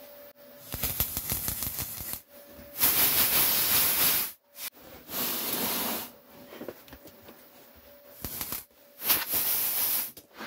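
MIG welder arc crackling and hissing in about five short bursts, each up to a second and a half long, as weld is laid onto a steel body panel a little at a time.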